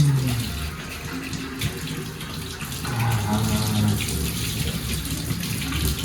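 Tap water running and splashing as a whole raw chicken is rinsed clean under it.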